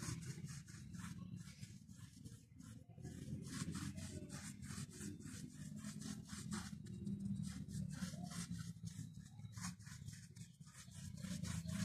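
Small bristle brush scrubbing a thin liquid sealer onto rough concrete: quick repeated scratchy strokes, a few a second, over a faint low rumble.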